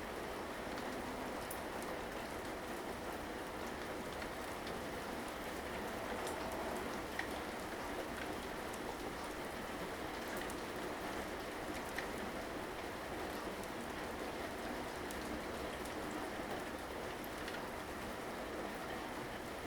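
Steady rainfall hitting surfaces, an even hiss of many drops with a few sharper individual drop ticks.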